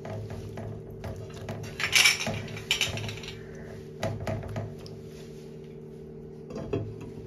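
Silicone spatula stirring vegetables in water in a nonstick pan, with irregular scrapes, knocks and sloshes, the loudest about two seconds in. A glass lid is set on the pan near the end.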